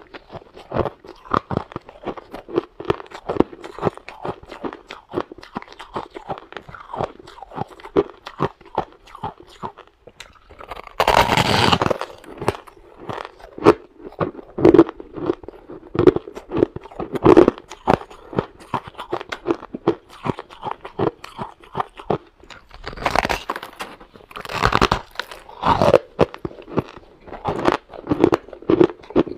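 Close-miked biting and chewing of packed shaved ice: many quick, wet crunches in irregular runs. There are a few louder, longer bursts about eleven seconds in and again around twenty-three to twenty-six seconds.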